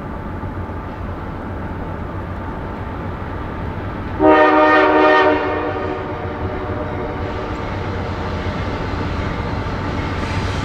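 Air horn of an approaching diesel freight locomotive sounding one blast of just over a second, about four seconds in, over the steady low rumble of the oncoming train.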